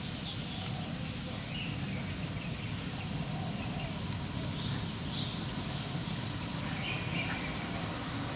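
Steady low outdoor background rumble, with faint short bird chirps every second or two.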